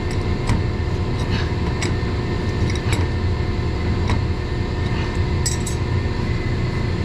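Light metallic clinks and taps, a handful of separate ones, as metal conduit fittings and hand tools are handled and tightened, over a steady low hum of mechanical-room equipment.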